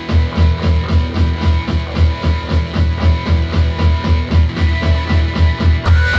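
Loud rock music with guitar over a fast, pulsing bass beat; a brighter, higher layer joins in near the end.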